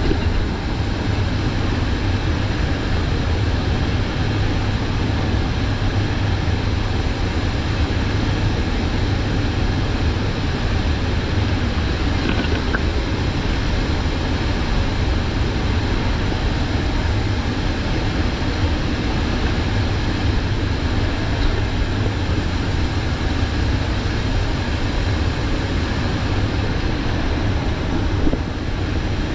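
Steady, loud drone inside the cargo hold of a C-130J Super Hercules in flight: the four Rolls-Royce AE 2100 turboprop engines and rushing air make a deep, constant hum under a wide hiss.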